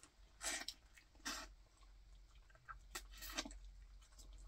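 A person eating boiled crawfish close to the microphone: four short, faint sucking and slurping noises as the meat is pulled from the shells.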